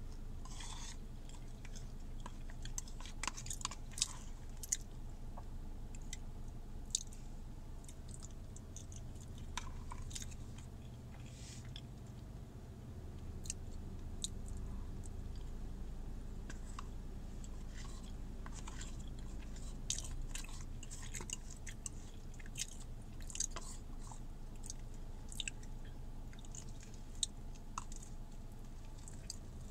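A person chewing food with the mouth close to the microphone, with scattered sharp smacks and clicks of eating, inside a car. A steady low hum runs underneath.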